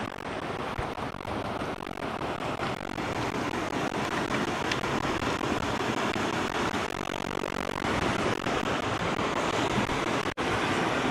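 Steady rush of the Stanislaus River's fast-flowing water, an even noise, cutting out for an instant near the end.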